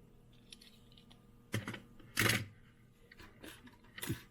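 Small die-cast toy cars and their holder being handled: a few short clicks and scrapes, the loudest about two seconds in.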